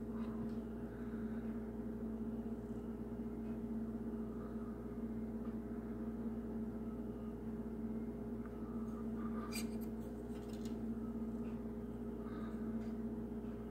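Steady electrical hum in a small room, with faint clicks and rustles of plastic model-kit sprues being handled, a short cluster of clicks about ten seconds in.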